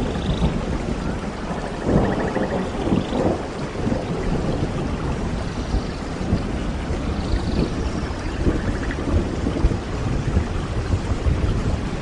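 Steady heavy rain with low thunder rumbling underneath, swelling and easing.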